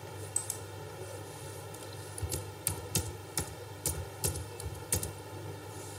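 Computer keyboard keys pressed one at a time, typing out a word: eight slow, separate keystrokes at two to three a second in the second half, after a couple of lighter clicks near the start.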